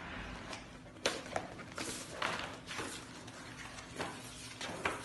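Heavy wallpaper sample pages of a large catalogue being flipped over one after another, each with a rustling swish and a flap as it lands.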